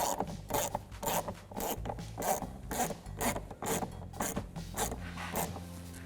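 Ratchet turning a T20 Torx socket on an extension to back out a small screw, its pawl clicking in short repeated strokes, about three or four a second.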